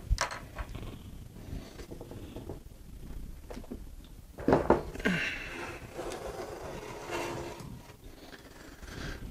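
Monoprice Maker Select Plus 3D printer being turned back upright and set on a wooden desk: scattered handling knocks and rattles of its frame, with one louder knock about four and a half seconds in.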